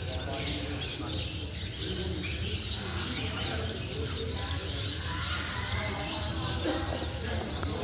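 Many caged pet birds chirping and calling at once, lots of short overlapping high chirps, over a steady low background murmur.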